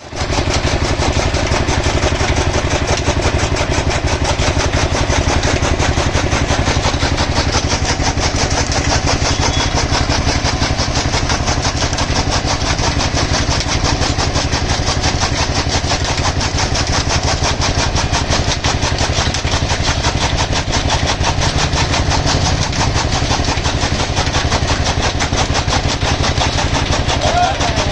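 Engine-driven fodder chaff cutter running steadily with a fast, even beat as it chops green fodder.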